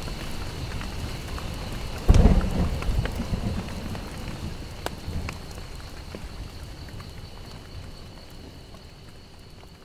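Rain falling with scattered drop clicks, and a sudden thunderclap about two seconds in that rumbles and dies away over several seconds. The whole sound slowly fades out.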